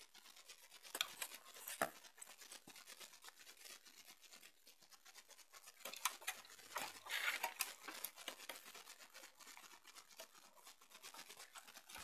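Faint handling noise: scratchy rubbing and scattered clicks as the recording device is moved about and handled, with a louder stretch of scraping about six seconds in.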